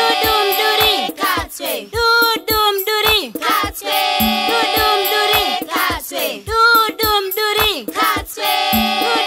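A Shona nursery rhyme sung by several voices over a steady low beat, about two to three thumps a second.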